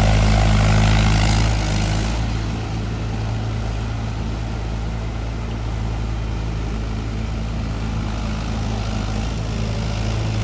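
Mahindra tractor's diesel engine running steadily under load as it churns a flooded paddy field on iron cage wheels. It gets a little quieter after about two seconds as the tractor pulls away.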